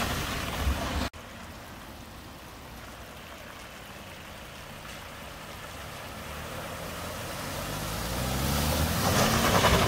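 Cars driving through a flooded road ford: engine noise and splashing water. The first splash cuts off abruptly about a second in. The next car's engine and spray then build steadily, the engine note rising and the splash loudest near the end as the car ploughs through the water.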